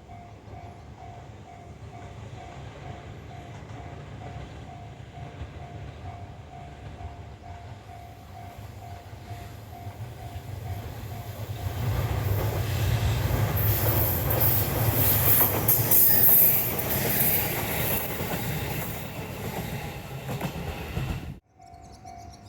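A Japanese level-crossing warning bell dings in a steady repeating rhythm while a Minobu Line electric train approaches. The train's run past the crossing grows into loud wheel-and-rail noise with high-pitched wheel squeal, loudest in the second half. The sound cuts off abruptly about a second before the end, and the crossing bell is heard dinging again.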